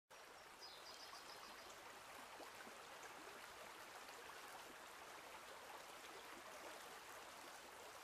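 Near silence: a faint, even hiss, with a brief high chirp about half a second in.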